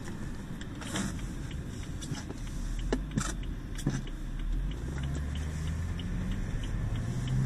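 Car engine and road noise heard from inside the cabin, with a few sharp clicks in the first half. The engine's hum grows louder from about halfway through as the car pulls away.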